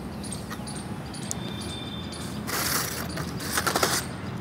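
Thermocol (expanded polystyrene) sheet being handled and broken, giving squeaky, crunchy rubbing about two and a half seconds in and again near the end. Underneath is a steady low hum with faint insect chirps.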